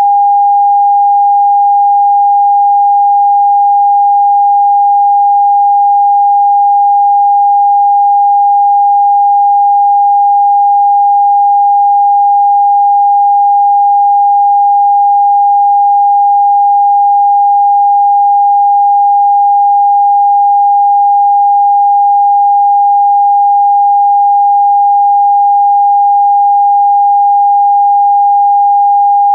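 Television test-card tone: a single pure sine-wave tone a little below 1 kHz, held loud and unbroken at one steady pitch.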